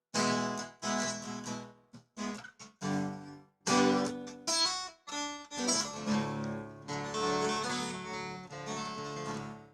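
Acoustic guitar strumming chords, each strum ringing out with short gaps between them, playing out the end of a song.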